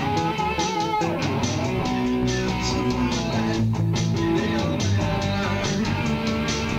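Instrumental music: guitar playing over a bass line, with a held, wavering note that slides down about a second in.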